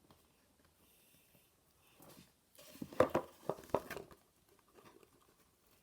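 Hands picking and peeling packaging tape off a cardboard box: a short cluster of crackles and clicks about two to four seconds in, with little sound before it.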